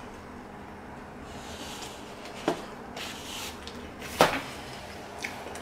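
Two sharp knocks about two seconds apart, the second the louder, with a small tap near the end and soft rustling between. They sound like objects being handled on a table.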